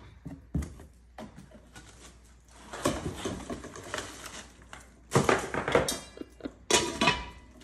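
Cardboard packaging and plastic wrap rustling, with scattered light knocks, as a plastic-wrapped hard-anodized frying pan and its cardboard insert are lifted out of the cookware box. The louder rustles come about three seconds in and again in the second half.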